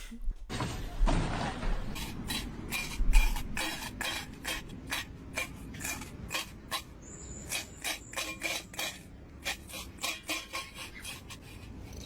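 A rapid, irregular run of sharp scraping and clicking strokes, with one heavy thump about three seconds in.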